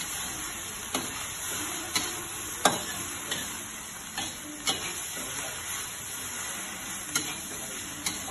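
Food sizzling in a metal wok on a gas burner while a metal spatula stirs it, with a steady frying hiss and seven sharp clinks of the spatula striking the pan.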